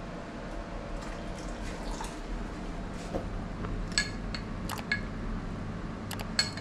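Vegetables boiling in a stainless steel pot on a gas stove, a steady soft bubbling, with a few light metallic clinks of a spoon about four seconds in and again near the end.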